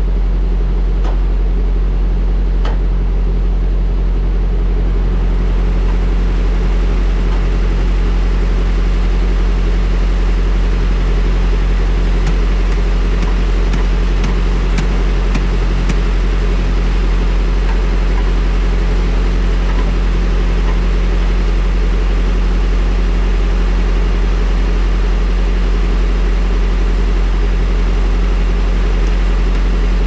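A diesel engine idling steadily, a loud, even low hum, with a few light clicks in the first few seconds.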